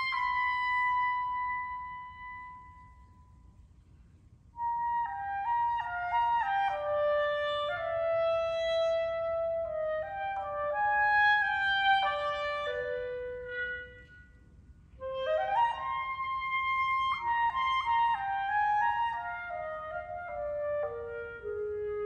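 Unaccompanied clarinet. A held high note fades away, and after a short rest come quick phrases of stepping notes. About fifteen seconds in, a fast upward run lands on a held high note, and the line then winds down to a lower note near the end.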